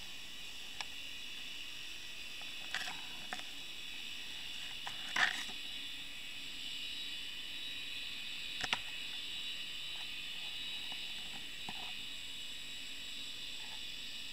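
Steady hiss from a Water Wolf underwater camera, broken by a few sharp clicks and knocks. The loudest knock comes about five seconds in. The clicks are an octopus handling and gripping the camera.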